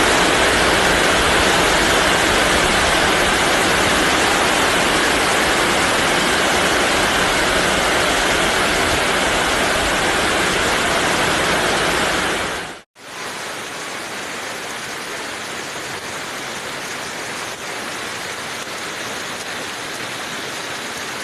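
Heavy rain and strong wind making a dense, steady rushing noise. About 13 seconds in it cuts off abruptly, then carries on noticeably quieter.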